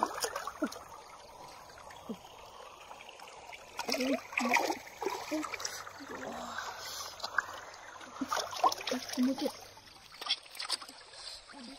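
Hands sloshing and splashing through shallow stream water among stones, over the steady trickle of the stream. Louder bursts of splashing come about four seconds in and again near nine seconds.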